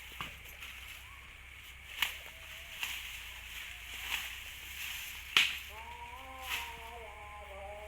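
A series of sharp cracks or snaps, each about a second or so apart, over a steady hiss. A few held, gently bending tones of background music come in about six seconds in.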